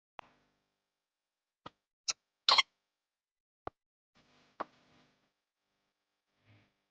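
A handful of separate short knocks and clacks, as of objects being picked up and set down, about six in all with the loudest, a sharp double clack, about two and a half seconds in, and a faint rustle around the fifth second.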